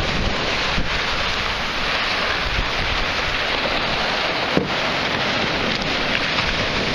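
Small waves breaking and washing around in the shallows, with wind rushing on the microphone. Two short knocks stand out, one about a second in and a sharper one past the middle.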